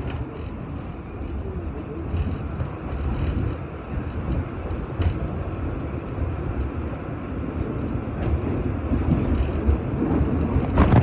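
R46 subway car running on elevated track, heard from inside: a steady low rumble of wheels on rail and running gear. A sharp click comes near the end.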